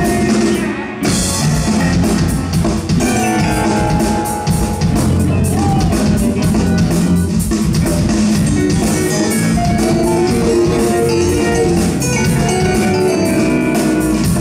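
Rock band playing live and loud: distorted electric guitars, bass and drum kit in a dense instrumental passage, with a brief drop about a second in.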